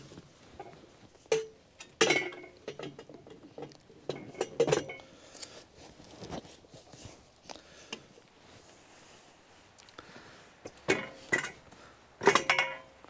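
Steel clanks and rattles as a post hole digger's lower hitch pins are lifted and dropped into a tractor's quick-hitch hooks on the lower three-point links: a series of sharp metal knocks that ring briefly, loudest about two seconds in and again near the end.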